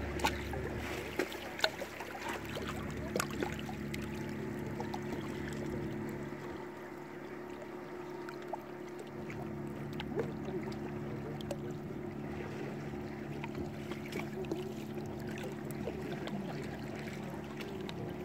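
Choppy lake water lapping and splashing against shoreline rocks, with small irregular splashes over a steady low hum.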